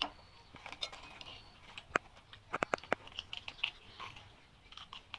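A person chewing and biting crunchy food, with irregular sharp crunches and clicks.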